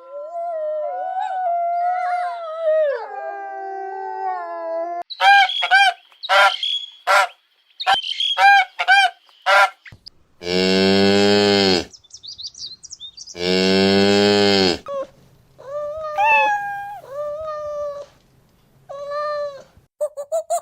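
A run of different animal calls in sequence: a long call that falls in pitch, a quick string of short calls, two long low calls like a cow's moo, then several short higher calls near the end.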